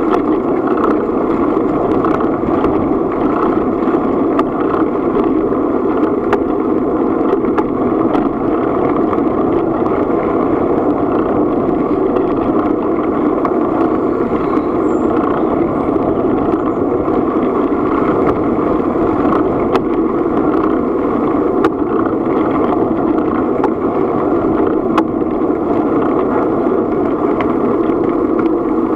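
Steady rumble of travel along a gravel track, with wind and handling noise on a moving camera and faint clicks now and then.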